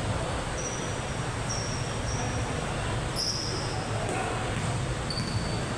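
Basketball shoes squeaking on an indoor court, about five short high squeaks, over a steady murmur of crowd and hall noise.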